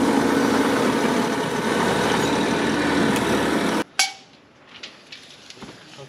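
Mini excavator's diesel engine running steadily with a constant hum, stopping abruptly about two-thirds of the way through. A single sharp click follows, then a much quieter stretch with a few faint taps.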